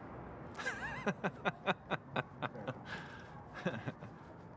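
A man laughing: a wavering high-pitched squeal, then a run of quick, even "ha-ha" pulses, and a short second burst of laughter near the end.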